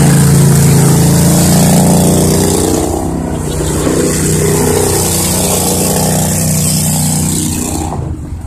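Argo MAX 6x6 amphibious UTV's engine running as the vehicle drives past at close range. It is loudest in the first few seconds and eases off near the end.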